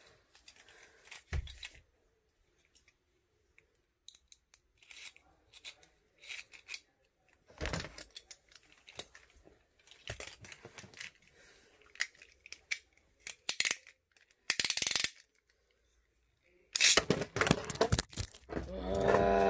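Beyblade spinning tops in a plastic stadium give scattered short clicks and knocks as they hit each other and the walls. Near the end comes a loud clatter and rustling as the phone falls and is grabbed.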